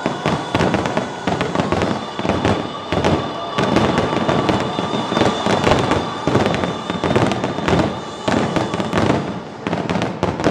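Fireworks display: a dense barrage of rapid, overlapping bangs and crackles from many shells, with music faintly underneath.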